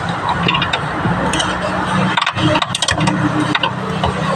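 A vehicle engine running steadily, with short metallic clicks and clatter over it.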